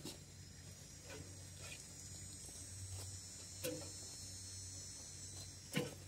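Occasional knocks and scrapes from a shovel and cardboard being handled on a compost bed, the loudest near the end, over a steady low hum and a faint high hiss.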